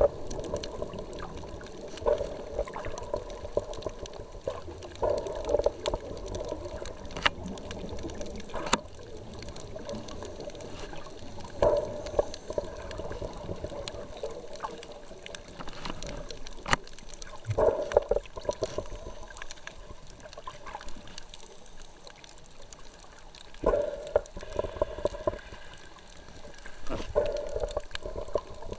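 Underwater sound of a scuba diver's exhaled bubbles: bursts of gurgling bubbles every few seconds over a steady low rush of water, with a few sharp clicks along the way.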